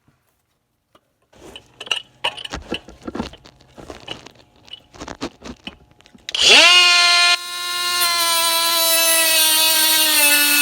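Scattered knocks and clicks of handling, then about six seconds in a Snap-on cordless angled die grinder starts with a quickly rising whine and runs on steadily with a high hiss, its pitch sagging slightly as it cuts through exhaust studs.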